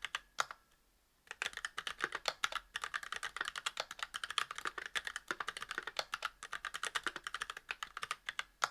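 Fast typing on a mechanical keyboard with Kailh Box Black linear switches, a brass plate and GMK keycaps: rapid keystroke clacks, with a short pause about half a second in before the typing resumes and runs on.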